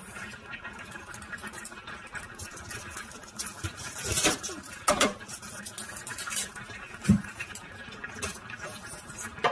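Onion being handled and peeled with a knife over a cutting board: dry papery skin rustling and crackling, with scattered small taps and a single knock about seven seconds in.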